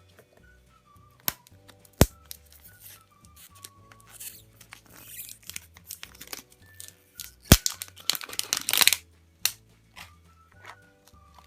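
Wrapping being torn and crinkled as a Chupa Chups surprise egg is opened, with a few sharp clicks (two of them the loudest sounds), over soft background music.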